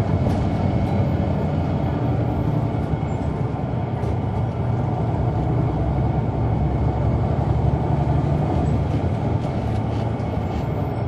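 Caterpillar C-9 ACERT inline-six diesel of a Neoplan AN459 articulated bus running steadily, heard from on board the bus.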